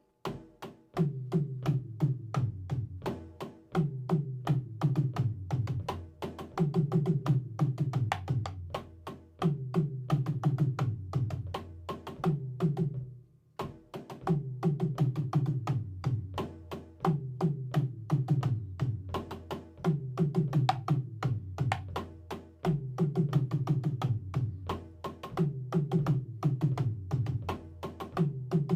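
Drum kit played in practice: a steady stream of sharp strokes in a repeating syncopated pattern, played without a metronome, with a brief break about 13 seconds in.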